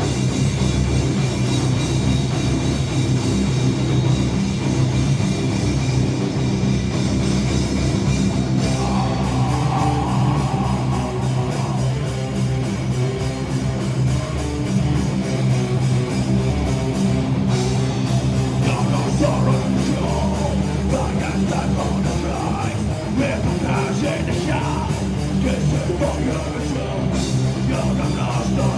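A live rock band playing heavy, loud music on guitars, bass and drum kit, with fast, steady drumming.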